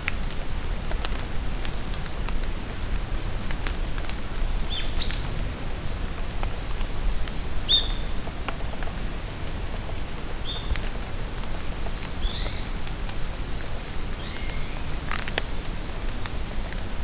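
Steady rain patter in a forest, with drops ticking and small birds calling now and then: short high chirps, a few quick rising or falling notes and brief trills scattered throughout.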